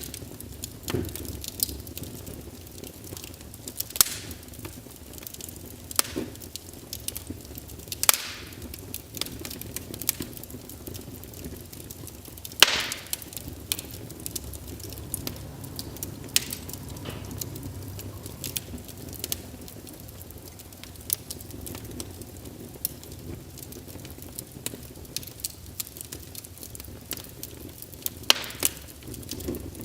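Wood fire in a fireplace crackling: irregular sharp pops and snaps over a steady low rumble, the loudest snap about halfway through.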